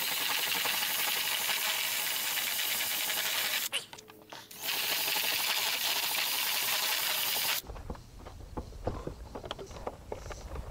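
Power drill with a step drill bit enlarging a hole in a plastic guard, cutting steadily for about four seconds, pausing briefly, then cutting again for about three seconds before it stops. Light knocks follow.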